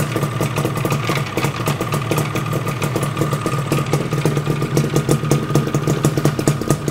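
Yamaha RD350's two-stroke parallel-twin engine idling steadily with an even, rapid pulse, running on both cylinders, with smoke coming from both sides.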